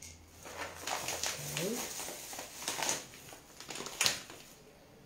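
Plastic bag of pine nuts crinkling as it is handled and poured, with a sharp knock about four seconds in.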